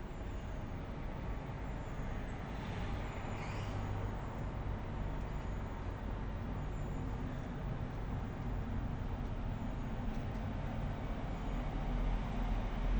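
Steady outdoor city background of road traffic rumble, growing louder near the end as a vehicle comes closer. Faint short high chirps come through here and there.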